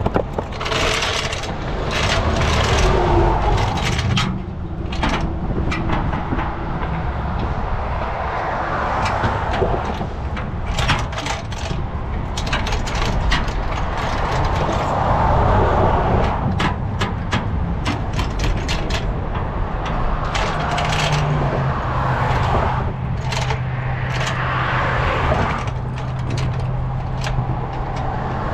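Road traffic passing in repeated swells, with many sharp clicks and scrapes of metal from work on a vehicle's flat tyre. A steady low hum sets in near the end.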